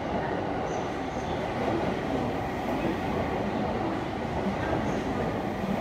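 A 285 series Sunrise Seto/Izumo electric sleeper train running through the station at speed. Its wheels on the rails make a steady rumble that does not let up.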